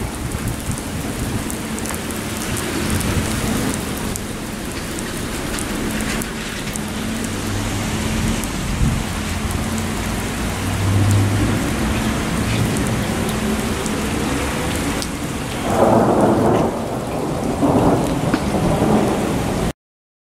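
Heavy rain pouring steadily, with thunder rumbling low beneath it; two louder stretches of rumbling come near the end. The sound then cuts off suddenly.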